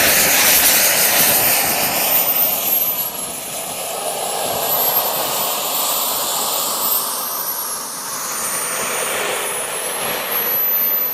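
Small gas-turbine engine of a radio-controlled sport jet running, a rushing jet roar with a thin high whine that dips and rises in pitch twice.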